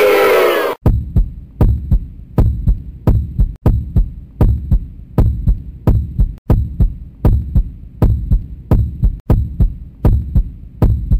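Heartbeat sound effect: deep double thumps about once every three-quarters of a second, looping evenly. It begins just under a second in, when a crowd's chanting cuts off abruptly.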